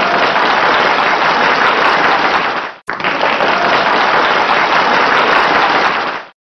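Canned applause from a clapping crowd, loud and even, played in two stretches with a brief break about three seconds in and cutting off abruptly near the end.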